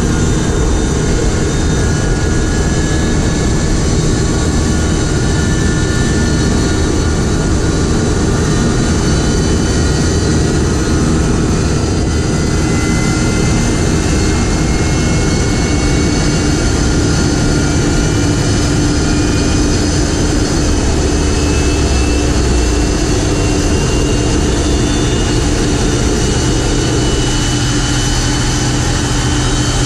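Boeing 747-200F jet engines running after start: a loud, steady roar with several turbine whines that slowly shift in pitch.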